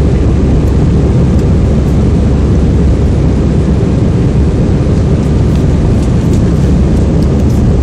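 Cabin noise of an Airbus A319-111 heard from a window seat beside the wing during the climb after takeoff: its CFM56-5B jet engines and rushing air make a loud, steady, mostly deep rumble.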